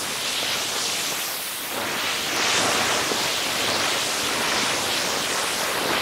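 Steady rushing and splashing of a spring-water waterfall pouring into a swimming pool.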